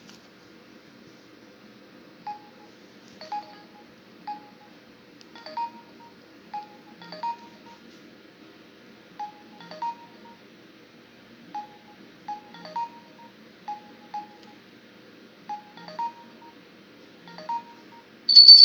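Samsung U900 Soul mobile phone keypad tones as its keys are pressed: about sixteen short mid-pitched beeps, each with a click, at irregular intervals. Near the end a loud high-pitched ringtone note starts.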